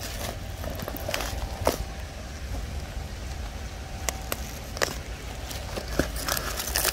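Packing tape and a paper address label being peeled and torn by hand off a cardboard box, giving scattered crackles and ticks over a low steady rumble.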